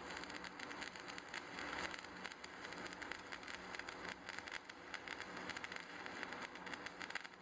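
Stick (shielded metal arc) welding arc crackling and sizzling steadily, with a faint steady hum beneath.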